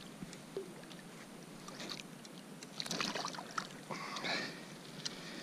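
Small splashes and drips of water as a snapper is grabbed at the surface and lifted from the sea beside a kayak, with faint clicks and light knocks of handling, loudest a little past the middle.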